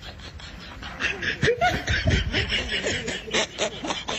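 Short bursts of snickering laughter from about a second in, over the scuffling and crackling of a large plastic sack being wrestled.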